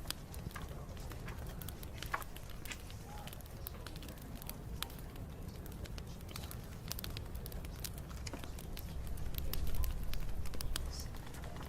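Wood bonfire burning, with many sharp crackles and pops over a low rumble that swells louder about nine seconds in.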